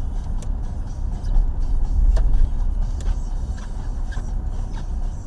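Steady low road and engine rumble of a car driving, heard from inside its cabin, with a few faint ticks.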